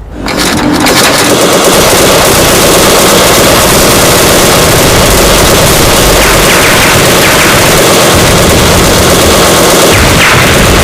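A loud, continuous rapid rattling sound effect, like automatic gunfire, that starts abruptly and holds steady for about eleven seconds.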